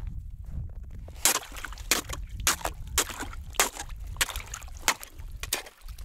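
Slush and broken ice being scooped and stirred in a hole cut in lake ice: a run of quick crunching, sloshing strokes, about three a second, starting about a second in.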